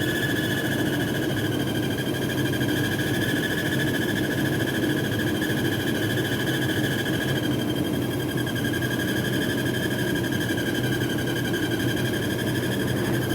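2007 Nissan Armada giving off a steady high whine over the low hum of its running engine; the whine fades slightly about halfway through, then comes back. It is a loud whine that comes on when accelerating, grows louder with throttle and stops off the gas.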